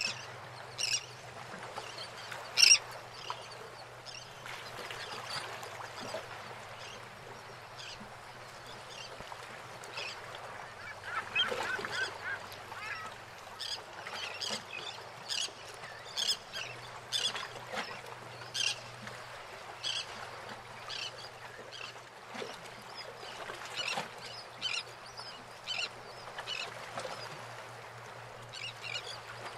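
Birds calling in many short, sharp, irregular cries, the loudest about two and a half seconds in, over the steady wash of harbour water lapping around moored boats.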